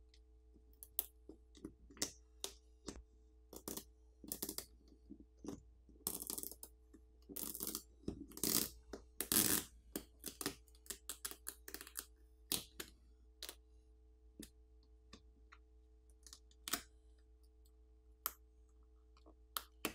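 Fingers working on an opened smartphone make scattered light clicks and taps. Around the middle come a few longer, louder rustling strokes as the adhesive NFC antenna film is peeled off the battery.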